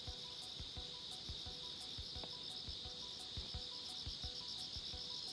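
Crickets chirping in a steady, high, fast-pulsed trill.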